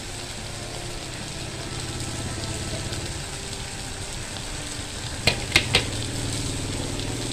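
Strips of meat sizzling steadily on an electric grill pan while being turned with wooden chopsticks. A little after five seconds in come three quick, sharp clicks.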